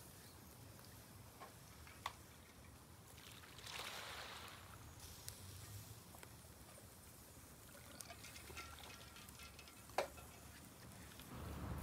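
Faint sea waves washing in, swelling about four seconds in and again near the end over a low steady rumble, with two sharp clicks, about two and ten seconds in.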